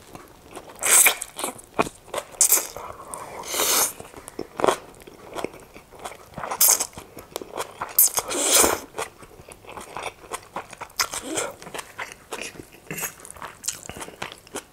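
Keema noodles being slurped and chewed close to a clip-on microphone: several loud slurps between quieter chewing.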